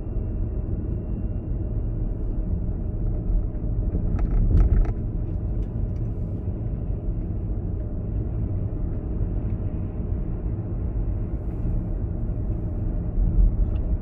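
Steady low rumble of a car driving along a road, with a few sharp clicks about four to five seconds in.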